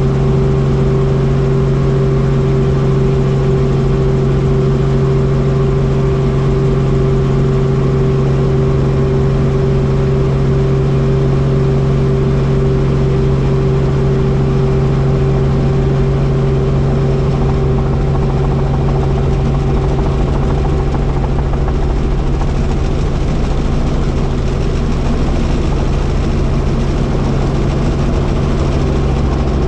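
Helicopter running steadily, a constant engine and rotor drone with a low hum and a higher whine; the higher tone fades about two-thirds of the way through.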